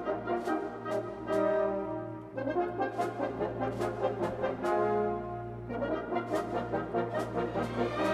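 Background music: orchestral brass playing held chords over a steady beat.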